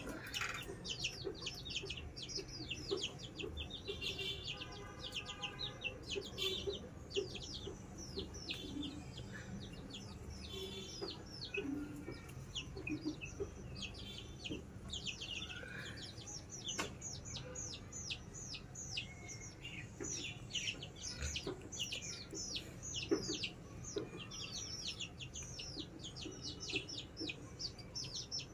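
Chicks peeping: a near-continuous stream of short, high, falling peeps, several a second, coming thickest in the second half.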